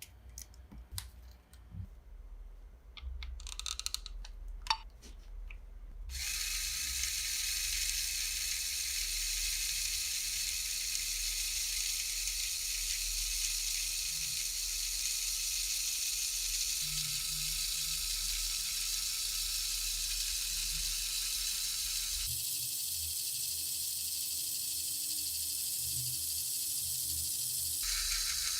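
Plastic Lego Technic parts clicking and snapping together as they are handled. A steady high whirring hiss then starts about six seconds in and runs on, shifting slightly in tone twice near the end.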